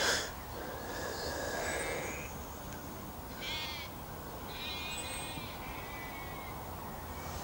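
Several short, wavering bleat-like animal calls, the loudest right at the start and others about three and a half and five seconds in, with faint high bird chirps.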